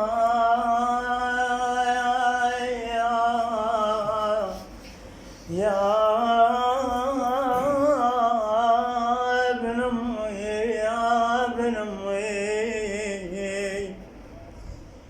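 A solo male voice singing long, drawn-out phrases of an Arabic folk lament in free rhythm, with wavering ornamented held notes. The singing breaks briefly twice, about a third of the way in and near the end.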